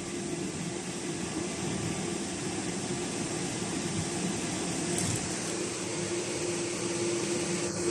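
12 V DC parking air conditioner running steadily in energy-saving mode: an even rush of air from its fan over a steady hum. There is one faint tick about five seconds in.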